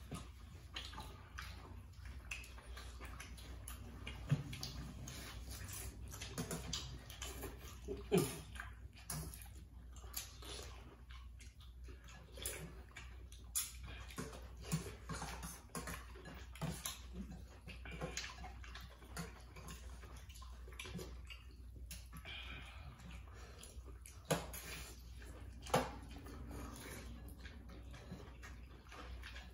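People eating noodle soup: wet slurping and chewing, with spoons scraping and clinking against metal bowls, a few louder clinks standing out.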